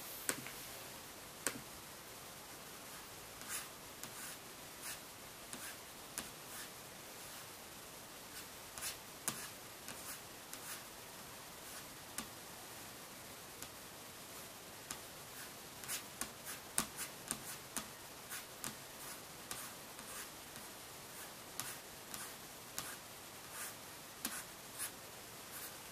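Faint, irregular light clicks and taps of hands working a computer keyboard and mouse, coming more quickly in the second half.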